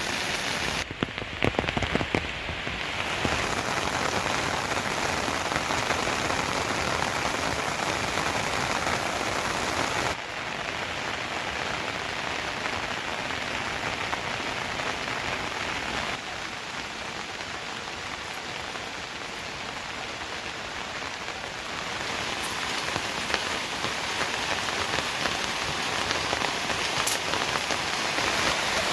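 Steady rain falling, with a few sharp knocks about a second in and the rain's level dropping abruptly twice.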